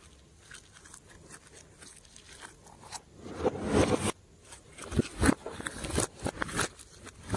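Hands working glossy slime: soft sticky clicks at first, then a louder squishing stretch about three seconds in, followed by sharp pops and crackles as the slime is pressed and pulled.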